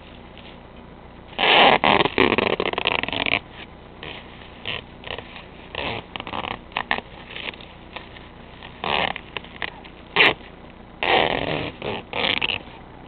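Duct tape being pulled off the roll in loud ripping bursts as it is wound around a plastic garbage bag: one long pull about a second and a half in, several short ones after, and another long pull near the end.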